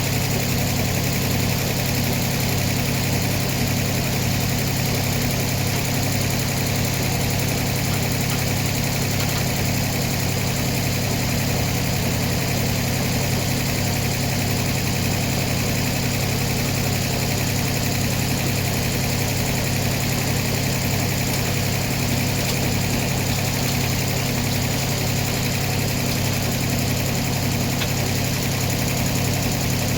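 Sawmill's engine running steadily at a constant speed, a continuous low hum with no change through the whole stretch.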